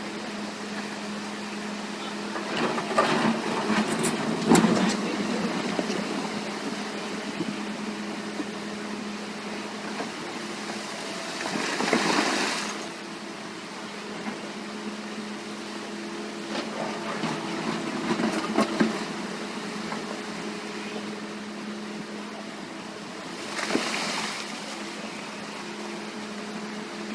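Excavator's diesel engine running steadily, with louder noisy surges of a second or two from the working machine four times.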